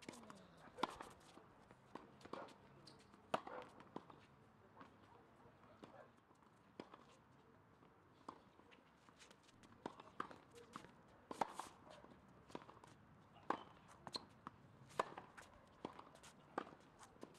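Tennis balls struck by rackets and bouncing on a hard court during a baseline rally: sharp, irregular pops, about one every second or so.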